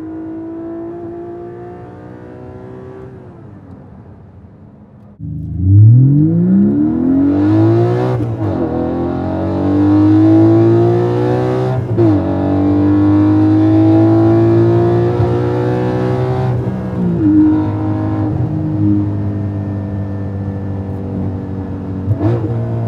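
Porsche 718 Cayman GT4's 4.0-litre flat-six heard from inside the cabin under hard acceleration. About five seconds in, it comes on sharply and climbs fast in revs. It then pulls up through the gears, with quick upshifts dropping the pitch about every four seconds.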